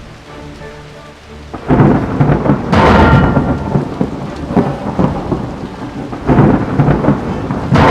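Thunderstorm sound: a low rumbling over steady rain, swelling into loud crashes of thunder about two and three seconds in and again near the end.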